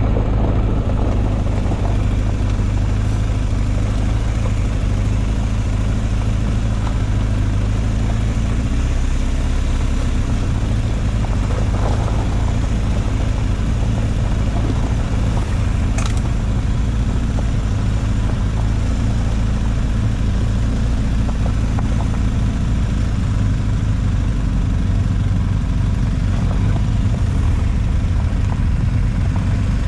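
Quad bike engine running steadily at low revs, a constant low drone.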